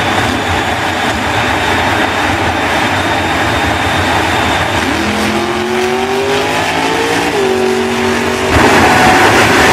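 Jet-powered semi truck's jet engines running with their afterburners lit: a loud, steady roar with a thin high whine over it. About halfway through a lower engine note rises in pitch and holds, and near the end the roar gets abruptly louder.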